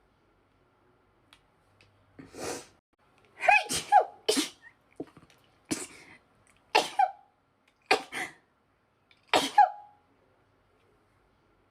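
A woman's sneezing fit: about half a dozen sneezes in quick succession, each a sharp burst with a short falling cry, separated by brief silences.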